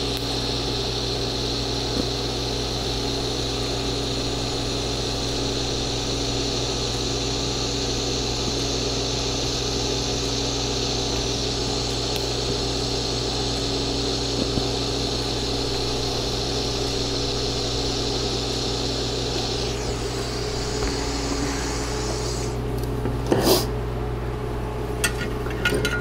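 TIG welding arc buzzing steadily through a plug weld, cutting out about twenty seconds in and leaving the welding machine's low hum. A few short sharp knocks follow near the end.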